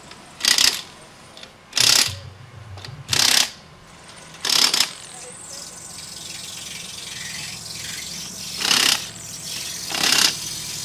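Impact wrench hammering on a dirt late model's wheel lug nuts in short bursts of about half a second: four in the first five seconds, a pause, then two more near the end.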